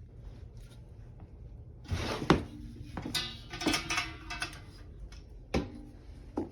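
Cardboard box and styrofoam packing being handled while a folding desk is unboxed: a few sharp knocks and thuds, with a squeaky rubbing stretch in the middle.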